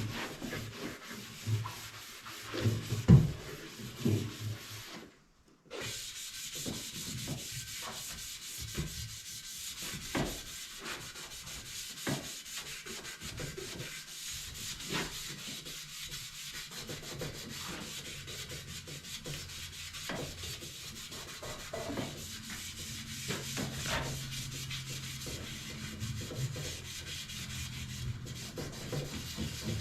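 Sanding a painted surface, scuffing off the shiny paint so that primer and liner will stick: a steady rasping hiss that breaks off briefly about five seconds in.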